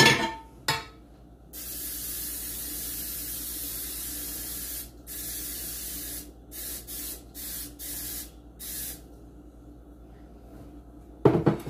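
Aerosol cooking spray hissing from the can to grease loaf pans. A sharp click or two at the start, then several seconds of continuous spraying with a brief break, then five short bursts in quick succession, and a knock near the end.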